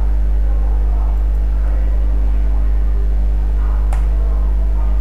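Steady low hum with several even overtones, with a single sharp click about four seconds in.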